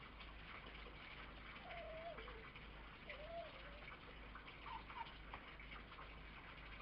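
Red fox giving faint whines: two wavering calls that rise and fall, about a second apart, then a few short higher squeaks, over a quiet background hiss.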